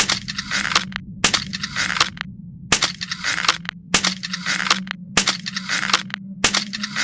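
Crossbow sound effect: the same short rasping burst ending in a sharp click, repeated six times at about one every 1.25 seconds, over a steady low hum.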